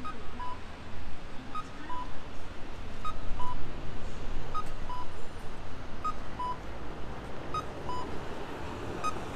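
An electronic two-note chime repeats about every second and a half, a short high beep followed by a slightly lower one, over steady street noise.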